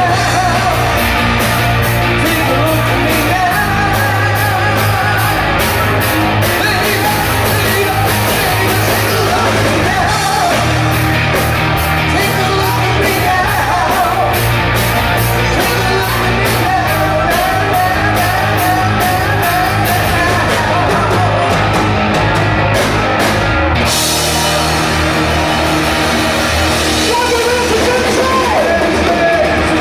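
Live rock band improvising with a singer over a steady drum beat, recorded loud with poor sound quality.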